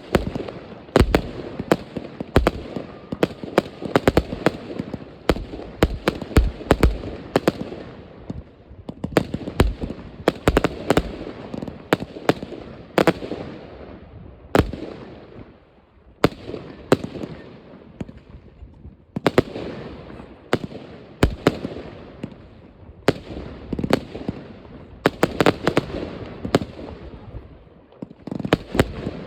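New Year's Eve fireworks going off all around: a constant crackle with many sharp bangs and pops, often several a second, from rockets and firecrackers across the neighbourhood.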